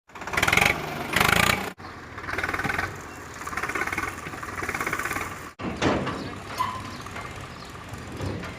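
Engine of working machinery running, heard in short segments that cut off abruptly about two seconds in and again past five seconds.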